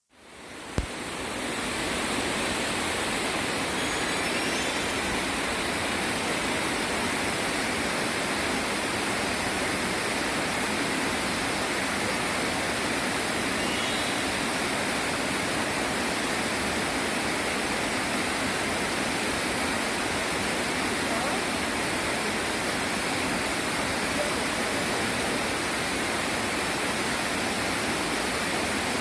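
Shirahige Falls rushing steadily: a dense, even wash of falling water. It fades in at the start, with a single short click about a second in.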